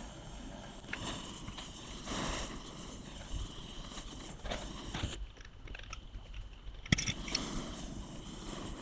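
Tools and metal engine parts clicking, knocking and scraping as the crankcase halves of a Piaggio Si moped engine are worked apart, with one sharp click about seven seconds in.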